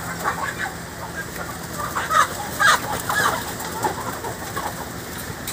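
A crowded flock of broiler chickens clucking and squawking as they are caught and handled, with two louder squawks a little past two seconds in.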